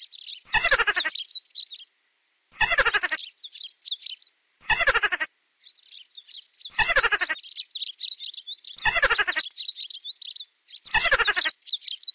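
Mouse squeaks, a short trilling squeak of quickly falling pitch repeated about every two seconds, six times, over songbirds twittering high and steadily between them.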